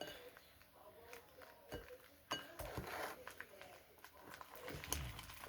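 Faint, scattered squishes and small clicks of slime being mixed by hand with shaving cream.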